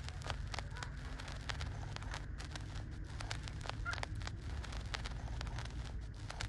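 Newborn puppies suckling, with irregular wet clicking and smacking at a few a second over a low rumble. There is one short high squeak about four seconds in.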